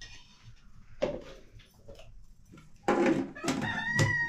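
A rooster crowing, starting about three seconds in with one long drawn-out note.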